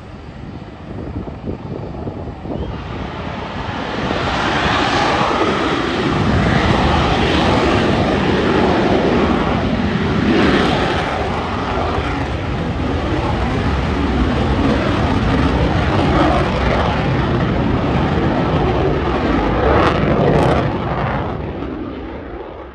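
Fighter jet engine running at high power on the runway. A loud jet roar with a deep rumble builds about three to four seconds in and holds steady, easing a little just before it cuts off.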